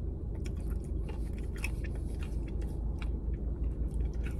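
A person chewing a mouthful of ice cream, with small wet smacks and clicks, over a steady low hum inside a car.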